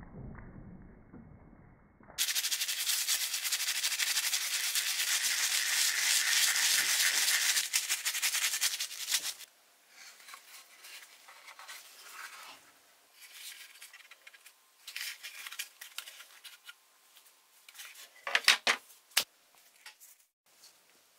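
Abrasive rubbing and scraping on a small metal toy part, typical of sanding or brushing during restoration. One loud, continuous stretch of several seconds is followed by shorter, quieter strokes and a few sharp clicks near the end.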